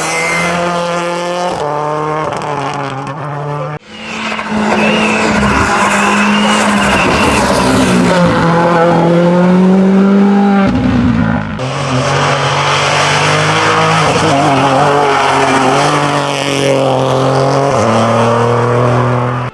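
Hillclimb race cars' engines at high revs under hard acceleration, the pitch holding and then climbing between gear changes. The sound breaks off sharply about four seconds in and shifts again a little past halfway.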